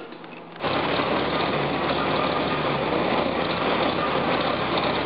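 The 1921 Mercer's engine running at a steady idle, cutting in abruptly about half a second in.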